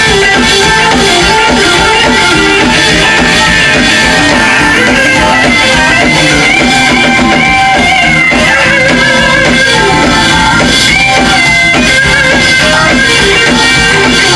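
Live electric blues band playing: a lead electric guitar line with bent notes over bass guitar and drums.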